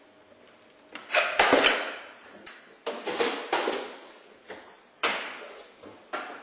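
A series of loud knocks and thuds at uneven intervals, each dying away briefly, the loudest cluster about a second in.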